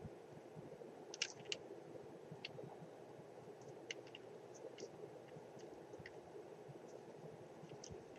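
Faint, scattered small clicks and handling sounds from hands working glued lace and a hot glue gun, over a steady low hum.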